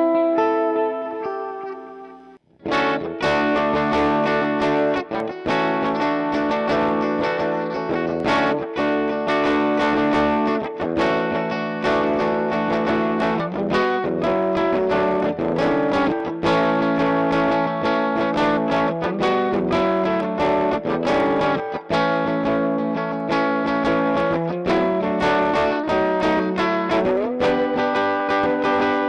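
Greco EG-135 electric guitar being played through an amplifier. A chord rings and fades out over the first couple of seconds, then continuous playing starts, with many picked notes and chords.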